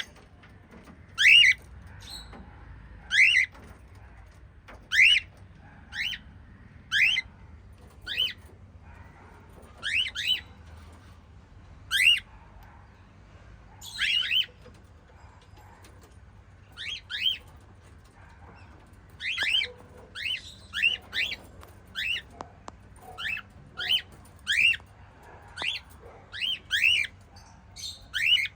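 Small pet parrots giving short, high-pitched chirping calls, each a quick upward sweep, one every second or two and sometimes two or three in quick succession.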